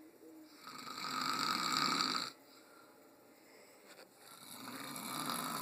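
A sleeping young child snoring: two long, rasping breaths, each swelling over a second or two, the first cutting off sharply about two seconds in and the second building near the end.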